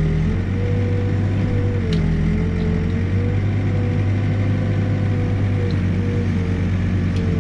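Backhoe diesel engine running steadily, with a whine that wavers and dips slightly in pitch now and then as the machine works. A few faint clicks.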